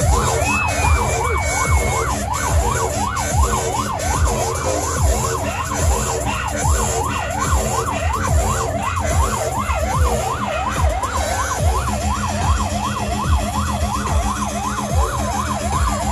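Siren in yelp mode, its pitch sweeping quickly up and down about three to four times a second without a break, over a low steady hum.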